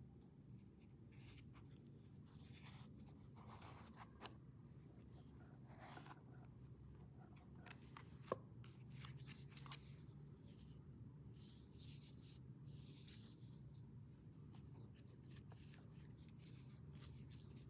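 Faint handling sounds: intermittent rubbing and rustling with a few light clicks, one sharper click a little past eight seconds in, over a steady low hum.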